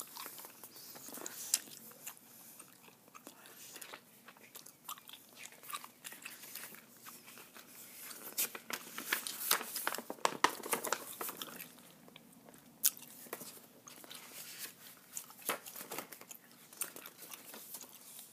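Gum chewing close to the microphone, with the crinkle and rustle of paper activity sheets being handled and turned. Irregular soft clicks and crackles, growing busier and louder about halfway through.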